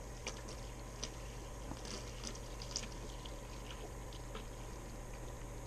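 Aquarium siphon, an open tube, drawing water and red slime cyanobacteria out of a fish tank into a bucket: faint irregular splashes and drips as the water falls into the bucket, over a steady low hum.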